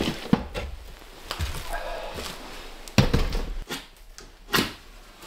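Several knocks and thumps of kindling, a bucket and a lantern being handled and set down on a wooden cabin floor, the loudest knock about three seconds in.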